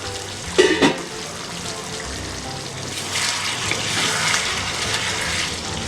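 Masala with eggs and potatoes bubbling and sizzling in a kadai, with a brief clatter of a utensil about a second in and a louder hiss in the second half. Background music plays underneath.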